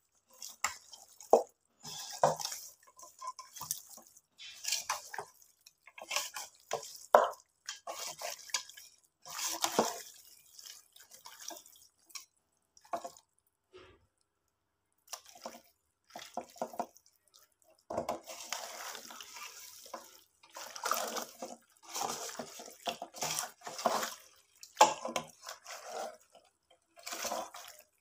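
Hands mixing and kneading seasoned raw chicken pieces in a metal pot: irregular wet squelches and squishes, with a short lull about halfway through.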